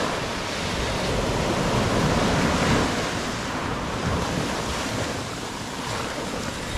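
Ocean surf breaking and washing up a sandy beach, a steady rush that swells a little about two to three seconds in, with wind buffeting the microphone.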